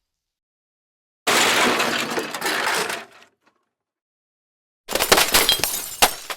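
Two separate crash-and-break sound effects. The first begins suddenly and fades over about two seconds. After a short silence comes a rattling run of sharp clatters and cracks lasting about two seconds.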